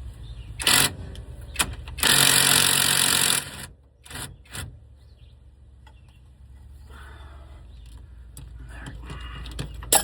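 Metal clicks and knocks from work on a truck's steering shaft, with a loud hiss-like burst lasting about a second and a half near the start and a low steady hum underneath. More sharp clicks come near the end.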